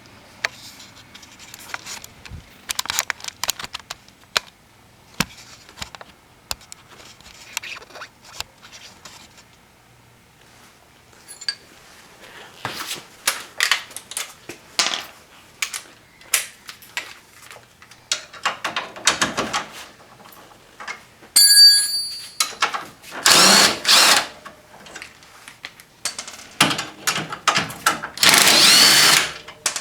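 A power tool runs in short bursts, loosening and backing out the hub (knuckle) bolts on the rear suspension, between scattered metallic clinks of tools and bolts being handled. The two loudest, longest bursts come in the last third.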